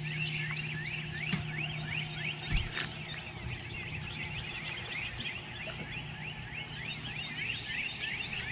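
A dense chorus of many short, rapidly repeating chirping calls from animals along the shore, over a low steady hum.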